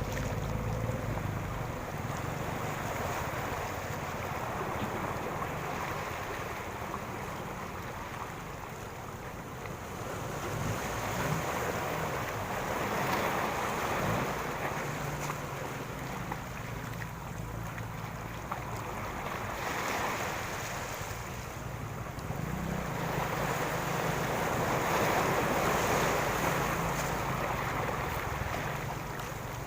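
Ocean waves breaking and washing up a beach, a steady surf noise that swells and fades with each wave every several seconds, over a low rumble of wind on the microphone.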